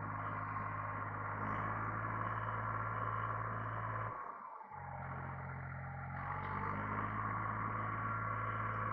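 International Harvester 385 diesel tractor running steadily under load while bush hogging pasture, its engine tones joined by a steady higher whine. The sound dips briefly about halfway, then carries on as before.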